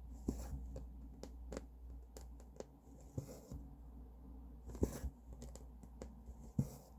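Close-up sounds of hand cross-stitching: the needle clicking and tapping as it pierces the cloth, and short swishes as the thread is drawn through, over a faint steady hum.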